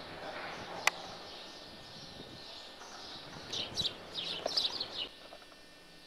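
Birds chirping in a quick run of short high calls between about three and a half and five seconds in, over a steady outdoor hiss. A single sharp click comes about a second in.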